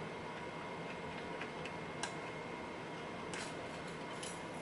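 A few faint, light metallic clicks of a lock pick and tension wrench working in a pin-tumbler lock, most of them in the second half, over a steady faint background hiss.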